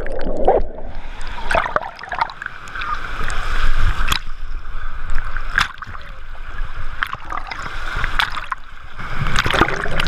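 Rushing, splashing water in the channel of a wild-river water ride, heard from a camera carried along in the current, with scattered sharp splashes. The sound is muffled at first while the camera is underwater.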